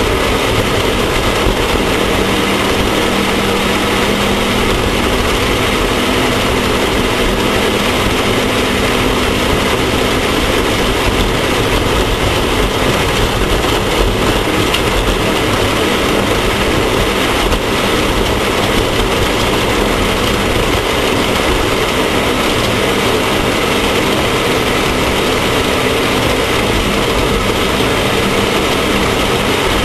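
Off-road race vehicle's engine running steadily under load, with dense, loud driving noise and no let-up.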